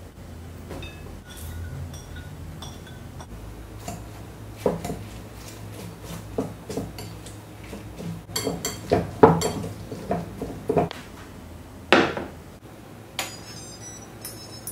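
Kitchen utensils and dishware clinking and knocking in scattered strikes, with a busy run of them around the middle and one sharp knock near the end.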